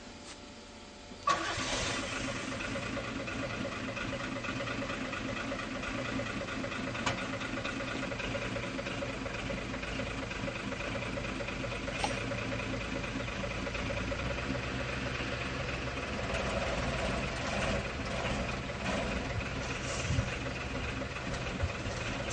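The Unic 75 PC fire truck's engine starting about a second in, then running steadily.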